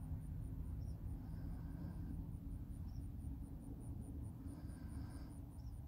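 Faint outdoor background: a low, steady rumble with a few short, high chirps at about one second, three seconds and near the end, over a faint, steady, high pulsing.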